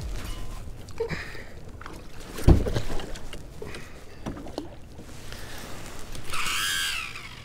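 Knocks and handling noises of fishing gear against a kayak, with one loud low thump about two and a half seconds in and a brief, wavering pitched sound near the end.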